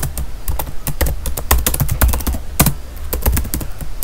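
Typing on a computer keyboard: an irregular run of key clicks, several a second, some strokes louder than others.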